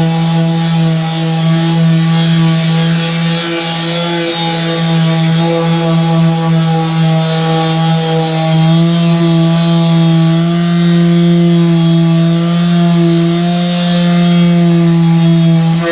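Electric sander running steadily, its motor giving a constant hum with a slight waver in pitch as it works on the pickup bed's metal bodywork.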